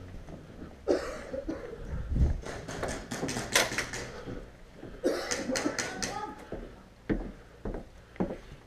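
Muffled voices mixed with irregular rustling movement noise, then several short sharp knocks near the end.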